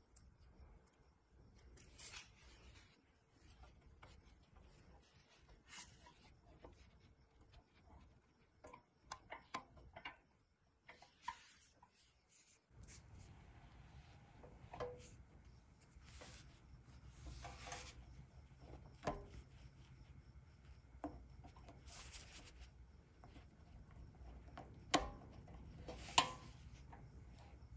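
Faint rubbing and light clicking as a chrome hubcap and white-walled rubber tire are handled and pressed onto a pressed-steel Tonka toy truck's wheel, with two sharper clicks near the end.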